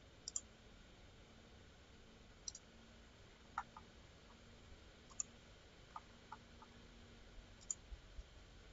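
Computer mouse buttons clicking now and then, single clicks and quick pairs a second or two apart, over a faint steady hum in a near-silent room.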